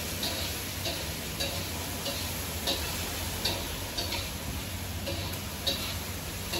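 Spatula stirring and scraping pork pieces frying in a pan, in regular strokes about every two-thirds of a second, over a steady low hum.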